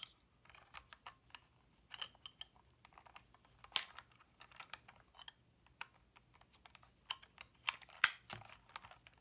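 Irregular light clicks and taps of hard plastic as a leg is worked into the hip joint of a 1976 GI Joe figure, with a few sharper snaps about four, seven and eight seconds in.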